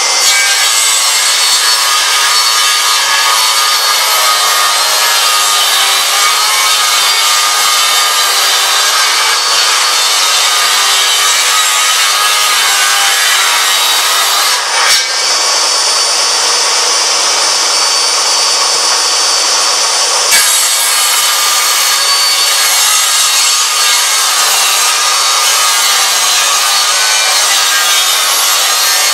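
Table saw ripping solid oak boards: the blade runs steadily under load through the cut, with two brief breaks, one about halfway through and another a few seconds later.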